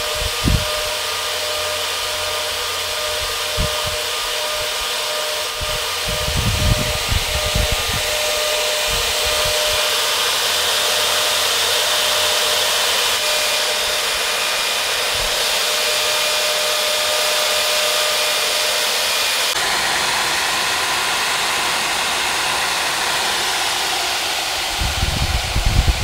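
Two 12 V fans blowing through a water-cooling radiator, the hot-side heat exchanger of a Peltier air conditioner, running steadily: an even rush of air with a faint hum of blade tones. A few short low rumbles break in, twice in the first third and once near the end.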